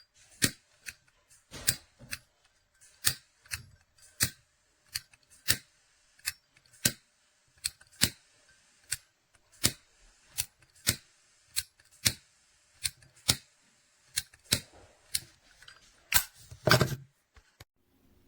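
A series of sharp mechanical clicks, evenly spaced at about one every two-thirds of a second, with a longer, heavier rattle near the end.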